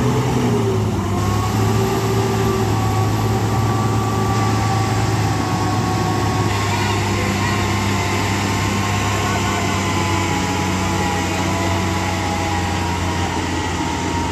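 Tipper truck's diesel engine running with a steady low drone as the truck works its way up a muddy slope, with voices over it.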